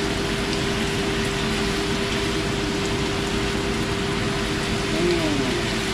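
Beef stir-frying with kroeung lemongrass paste in a pan, a steady sizzle, with a faint steady hum underneath.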